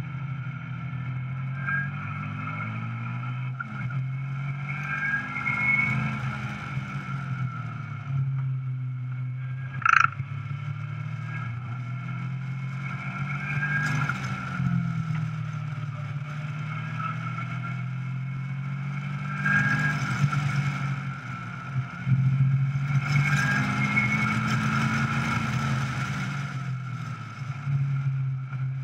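Caterham 420R SV's four-cylinder engine running hard at speed on track, its pitch rising and falling as the driver works through the gears, with wind rushing over the open cockpit. A short sharp noise, the loudest moment, comes about ten seconds in.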